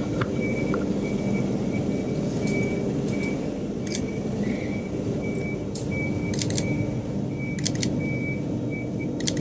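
Sony a7 III camera shutter firing, in single shots and quick runs of two or three clicks, over a steady hum of city traffic. A high electronic beep repeats steadily throughout.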